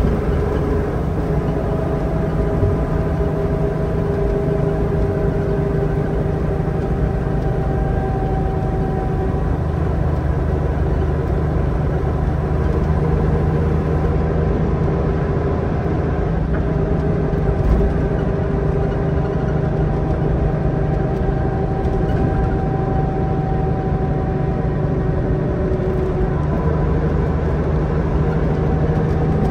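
Leyland Olympian double-decker bus cruising at motorway speed, heard from inside: a steady engine drone with a deep hum, faint whining tones and road noise. There is a single thump about eighteen seconds in.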